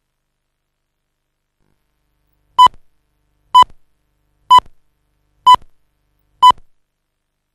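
Countdown leader beeps: five short, identical tone beeps about a second apart, starting about two and a half seconds in, one beep for each number of the countdown.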